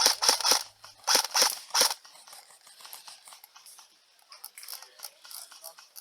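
Airsoft gun firing a quick string of shots, about three or four sharp clicks a second, in two bursts in the first two seconds, followed by fainter scattered clicks.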